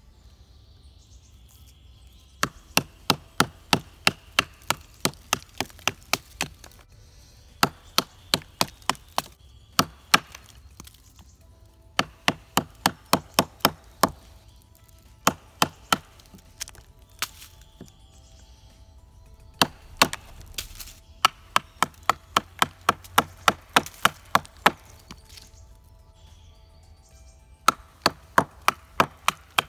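Wooden baton knocking on the spine of a bushcraft knife, driving the blade down to split a short length of branch (batoning). The sharp knocks come about three a second, in half a dozen runs with short pauses between them.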